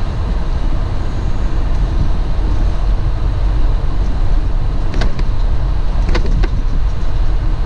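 Semi truck cab interior while driving: a steady low rumble of engine and road noise, with a few short rattles or knocks about five and six seconds in as the truck rolls over rough pavement.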